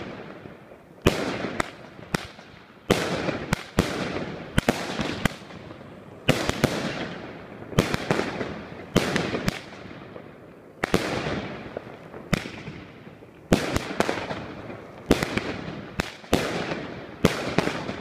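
Lesli Thunder Tales 36-shot salute cake firing shot after shot, each ending in a sharp bang with a long rolling echo. The bangs come at irregular intervals of about half a second to a second and a half, often in close pairs.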